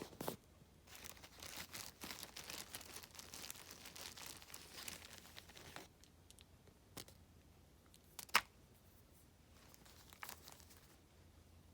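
Crinkling and rustling of plastic packaging handled up close for several seconds, followed by a few light clicks and one sharp click about eight seconds in.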